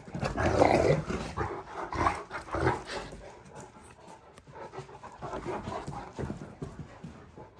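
Great Dane puppy galloping across the floor: quick runs of heavy paw thuds, loudest in the first second and again around two to three seconds in, then lighter and more scattered.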